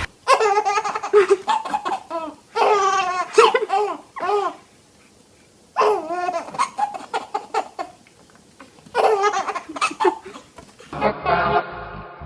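A young child laughing hard in several bouts with short silences between them. Near the end a chanted song with music begins.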